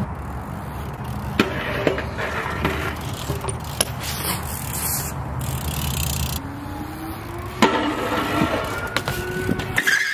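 BMX bike rolling on a concrete skatepark, its tyres rumbling, with several sharp clacks of the bike and pegs knocking on the concrete. The loudest clacks come about one and a half seconds in and again at about seven and a half seconds. A faint rising whine runs through the second half.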